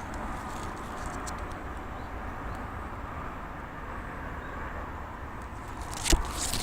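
Steady outdoor background noise, a low rumble with a hiss over it, and one sharp knock near the end.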